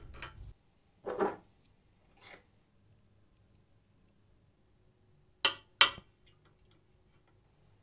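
Small scooter parts and tools being handled on a workbench: a few light clicks and rustles, then two sharp clicks about a third of a second apart, a little over five seconds in.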